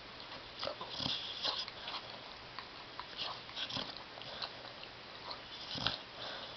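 Sleeping dog snoring and breathing noisily in irregular short breaths, with louder ones about a second in, near four seconds and near six seconds.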